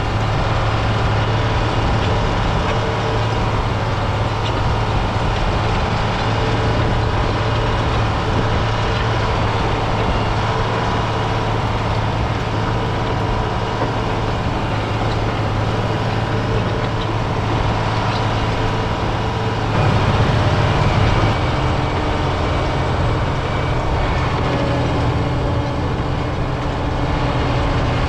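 John Deere 670G motor grader's diesel engine running steadily with a strong low hum. About twenty seconds in it briefly gets louder and its note then changes.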